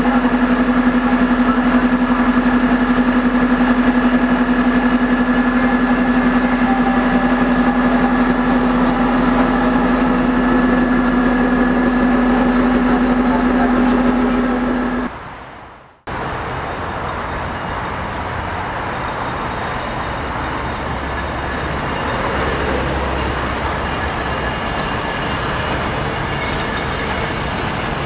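DR1B diesel multiple unit idling, a steady even hum, which breaks off about halfway through. It is followed by a TEP70 diesel locomotive hauling passenger coaches: a rougher low rumble of the engine and rolling train that swells slightly as it moves off.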